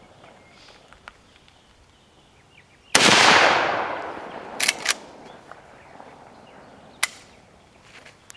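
A single shot from a Winchester Model 94 lever-action rifle in .30-30, with a long fading echo. About a second and a half later come two quick sharp clacks, the lever being worked down and up to chamber the next round. A shorter sharp snap sounds near the end.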